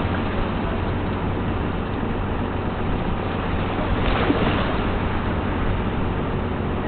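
Boat engine running steadily with a low, even hum under a constant wash of wind and water noise.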